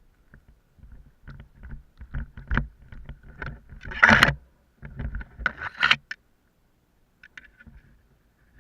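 Irregular crunching and rustling, like steps and movement through snow, the loudest burst just after four seconds in.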